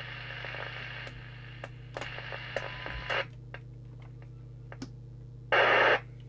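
FM CB receiver noise from a Moonraker Master 27/81 hand-portable breaking through the squelch on and off while the squelch preset is set to threshold: hiss over the first second, again around two to three seconds, and a short louder burst near the end. A steady low hum and small clicks run under it.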